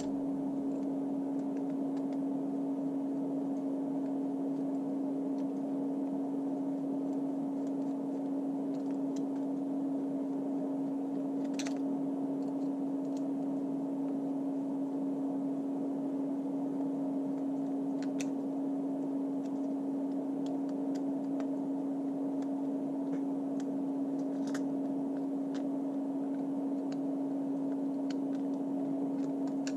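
A steady, unchanging hum holding one tone, with a few faint clicks scattered through it.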